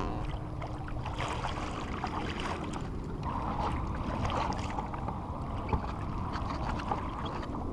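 Steady wind on the microphone and water splashing against a plastic kayak hull on a choppy sea, with a light knock near the middle.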